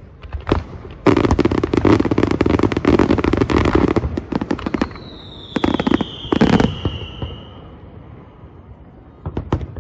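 Aerial fireworks going off: a single bang, then a dense run of rapid cracks and bangs for about three seconds, then two more bursts and a whistle that slides down in pitch, and a few scattered bangs near the end.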